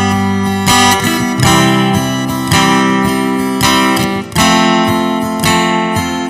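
Background music on acoustic guitar, strummed chords struck about once a second.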